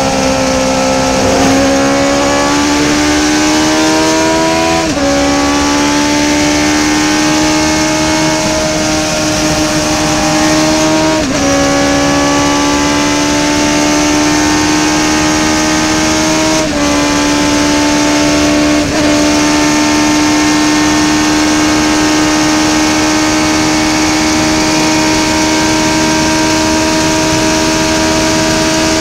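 Race car engine under hard acceleration, heard from inside the open cockpit: the pitch climbs and drops back sharply at each of several upshifts, then holds nearly steady at speed. A constant rush of wind and road noise runs under it.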